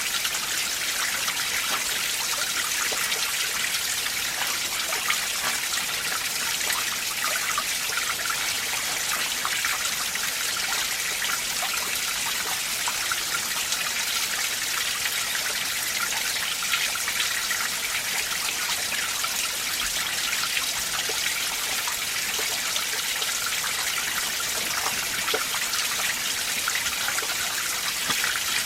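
Mountain stream in winter, icy water trickling and splashing over rocks in a steady, even rush.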